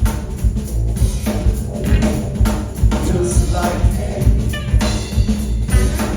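Live band playing a groove with a heavy bass line and a steady drum beat.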